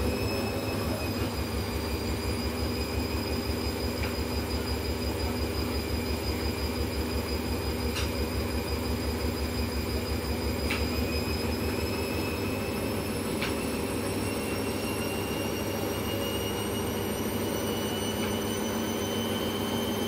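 Indesit front-loading washing machine on a fast spin: a steady high motor whine that creeps slowly higher in pitch, over a fast low throb from the spinning drum. A few faint ticks come through partway.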